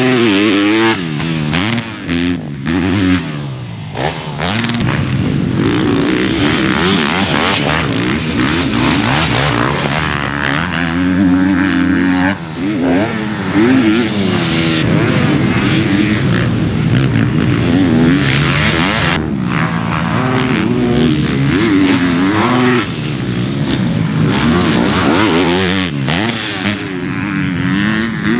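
Four-stroke motocross race bikes running hard on the track, their engines revving up and backing off again and again, the pitch climbing and dropping every second or two.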